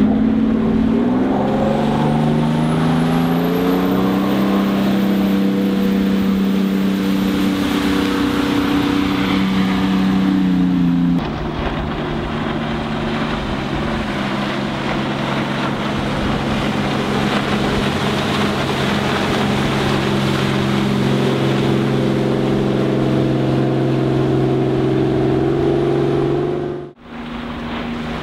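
Yanmar 240 hp turbo diesel of an aluminium jet boat running under way, a steady engine drone that climbs in pitch over the first few seconds as the boat speeds up, then holds. The sound changes abruptly about eleven seconds in, rises slowly again later, and drops out briefly near the end.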